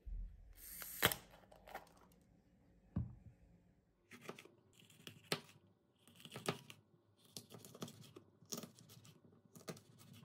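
Kitchen knife slicing a green pepper into rings on a wooden cutting board: about ten crisp crunching cuts, each ending in a light knock on the board, at roughly one to two a second from about four seconds in. Before the cutting, the pepper is handled, with a sharp crisp crack about a second in.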